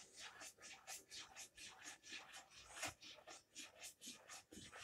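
Faint, irregular small pops and scratchy ticks, several a second, from a pan of thick tomato-based soup on the stove as it starts to bubble.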